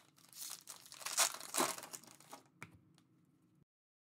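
Foil trading-card pack wrapper being torn open and crinkled by hand, with the sharpest rips about a second in. The sound cuts off to dead silence near the end.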